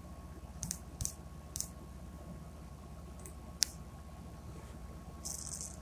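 Fingers tapping and handling a smartphone, picked up by its own microphone: a few faint, sharp clicks at irregular intervals, the last a little after the middle, over a steady low hum, with a short hissy rustle near the end.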